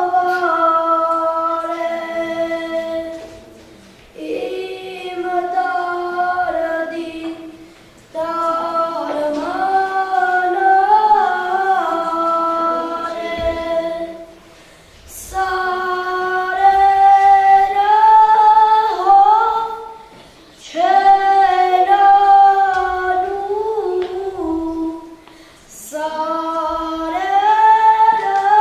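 Female voice singing a slow melody without accompaniment, in phrases of about four to six seconds with long held notes and short breaks between them.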